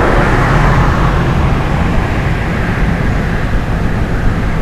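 Steady engine and tyre rumble of a moving vehicle driving on a paved road.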